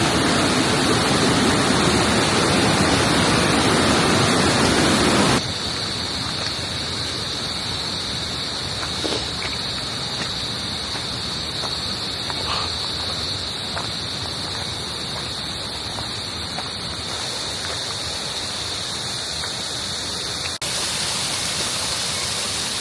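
Rushing water of a mountain stream and small falls, a steady noise with a steady high-pitched hiss over it. It is louder for about the first five seconds, then drops suddenly to a quieter rush.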